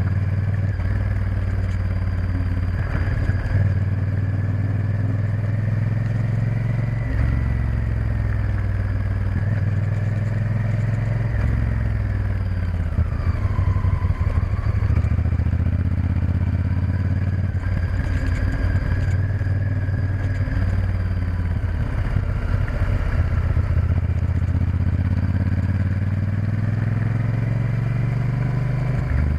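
Honda Varadero XL1000's V-twin engine running under way, its pitch stepping and gliding up and down with throttle and gear changes, over steady wind and road noise.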